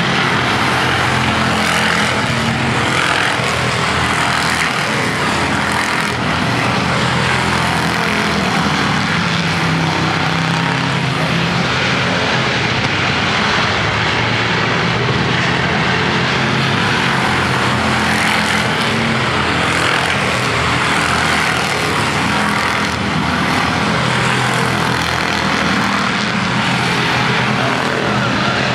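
Street stock race cars running at speed around an oval track, their engines blending into a loud, steady din with no letup.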